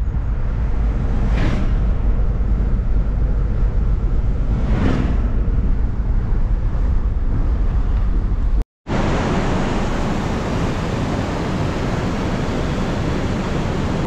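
Off-road vehicle on the move: a steady low rumble of engine and tyres with wind buffeting the microphone. There are two brief whooshes in the first five seconds, and a hissier noise after a cut about two-thirds of the way in.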